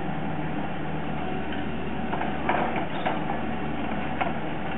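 Concrete truck's diesel engine running steadily, with a few light metallic clanks about two to four seconds in.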